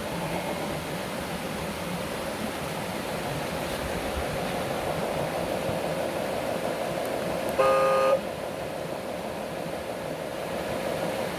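A single short horn toot, about half a second long, roughly eight seconds in, over a steady whirring hiss that runs on without change.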